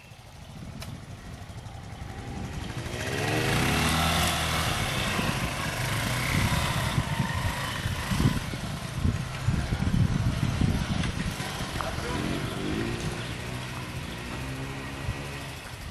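Vintage single-cylinder trials motorcycle engine revving up and down as it climbs a steep wooded section, with a run of sharp throttle blips in the middle.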